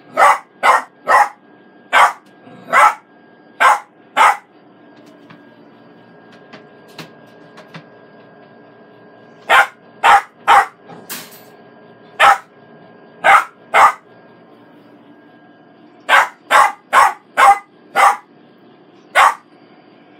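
Ten-week-old puppy barking from its wire crate: short, sharp barks in three bouts of six to eight, with pauses of a few seconds between them.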